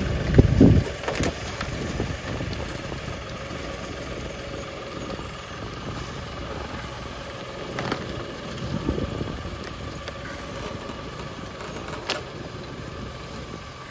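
Diesel engine of an LS compact tractor idling steadily. There are two louder low surges, one near the start and one about nine seconds in, and a few sharp knocks.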